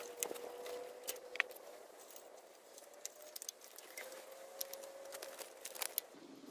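Light clicks, taps and rustling from hands handling a small-engine ignition coil and a paper spacer sheet by the flywheel, with a faint steady hum underneath.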